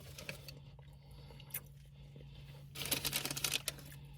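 Brief crackling and crinkling lasting about a second near the end, from the wrap with crunchy chips inside and its paper being handled or bitten.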